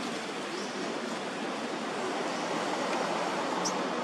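Steady rushing outdoor background noise with a few faint, short, high chirps over it.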